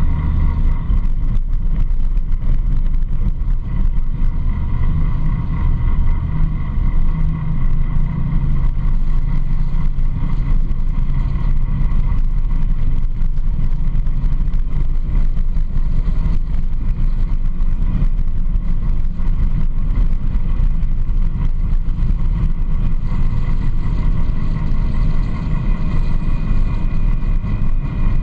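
Yamaha YFZ sport quad's engine running steadily at cruising speed, heard from the handlebars, with road noise from the tyres on gravel.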